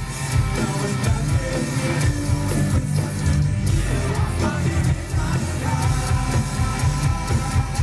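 Live rock band playing loud, with electric guitars, bass guitar and drums and singing, heard through the concert PA from within the crowd.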